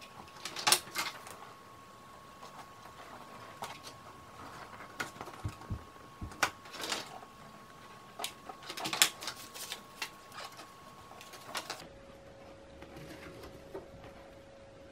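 Irregular clicks and short rubbing sounds as a low-temperature glue gun is worked and pressed against an inflated latex balloon to glue on paper wings.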